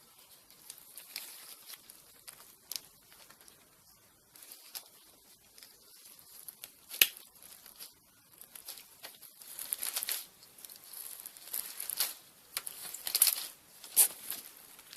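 Fluffy slime being stretched and squeezed by hand, giving an irregular crackling, tearing sound with several sharp pops.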